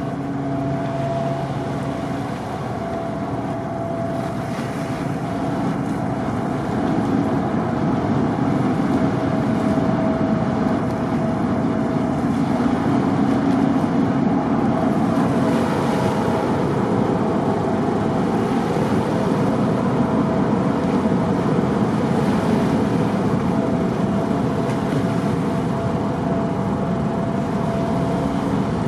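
Car ferry's engines running steadily with a low drone, mixed with wind on the microphone; it grows a little louder about seven seconds in.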